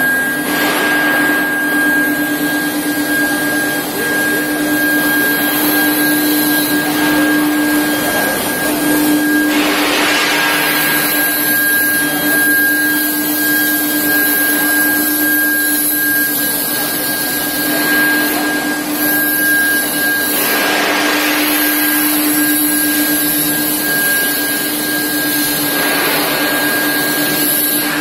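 Induction heat-treatment line for steel bars running: a steady hum with a constant high whine over a loud rushing machine noise that swells now and then.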